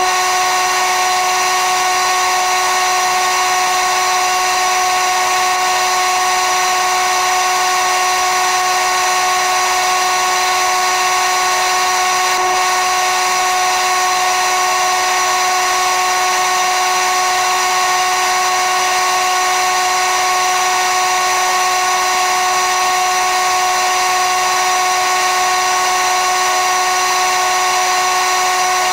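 A motor running with a steady whine at one unchanging pitch, with overtones, for the whole stretch.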